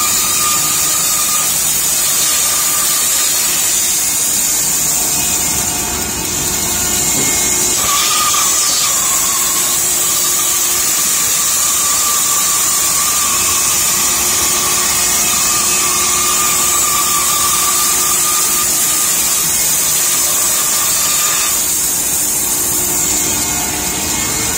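Automatic CNC contour saw running steadily, its narrow blade cutting curves through a stack of wooden blanks, with a constant high whine and hiss; the whine shifts slightly in pitch a few times as the cut goes on.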